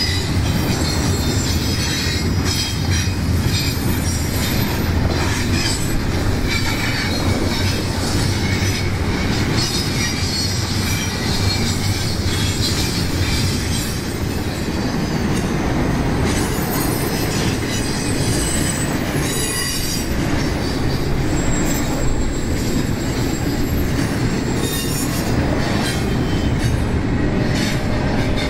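Double-stack intermodal freight train's well cars rolling past: a steady rumble of steel wheels on rail, with thin high flange squeals coming and going.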